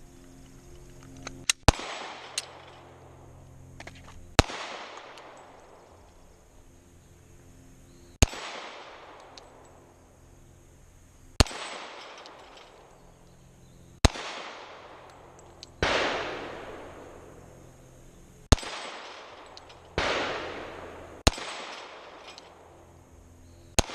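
Glock pistol shots fired at a steel dueling tree, about eleven sharp reports spaced irregularly, a second to several seconds apart, each trailing off in a long fading ring of struck steel and echo.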